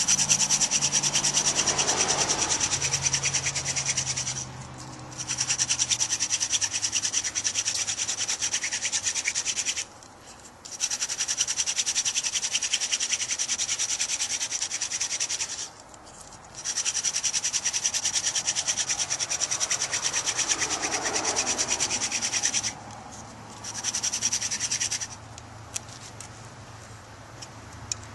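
Hand drill friction fire: a hemlock root plug on the spindle tip spinning against a sunflower root hearth board, a fast dry rubbing. It comes in five runs of a few seconds each, broken by short pauses.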